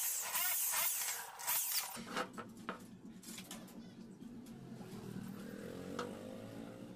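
Electric drill running and drilling into a metal oil-stove burner, its pitch wavering, stopping suddenly about two seconds in. After that, a few light metallic clinks as the burner is handled, over a low engine-like hum whose pitch rises near the end.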